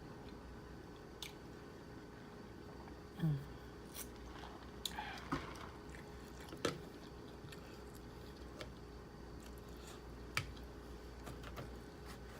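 A person chewing and biting crispy fried lumpia, with scattered small crunches and clicks and one short low sound about three seconds in.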